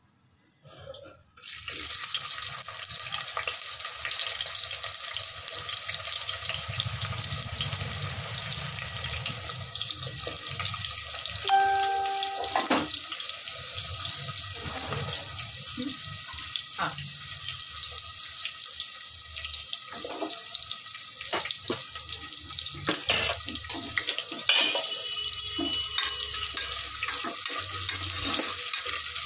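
Sliced onions sizzling steadily in hot oil in an aluminium pressure cooker; the sizzle starts suddenly about a second and a half in. From about the middle on there are scattered clicks and knocks of a spatula against the pot.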